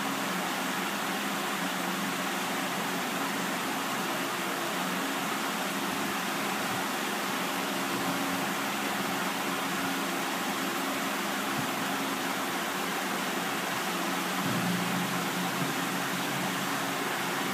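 A steady hum with an even hiss over it, unchanging in level; the low part of the hum grows a little stronger about fourteen and a half seconds in.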